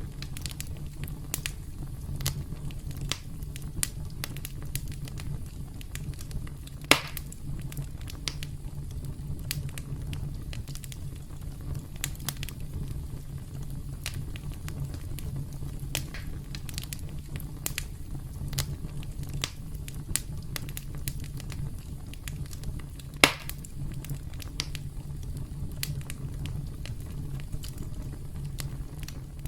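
Campfire crackling: a steady low rumble of burning wood with frequent small snaps, and two louder pops, one about a quarter of the way in and one about three quarters of the way in.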